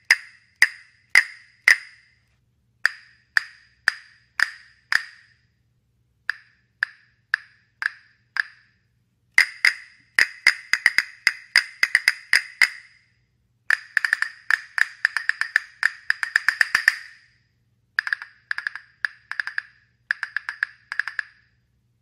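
A pair of wooden castanets clicking. First come single sharp clicks about two a second in short groups with pauses, then from about ten seconds in fast rolls of rapid clicks.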